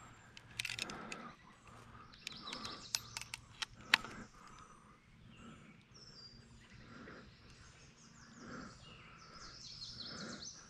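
Birds chirping in the background. In the first four seconds there are several sharp clicks and rattles from a landing net being hooked onto and lifted on a digital hand scale.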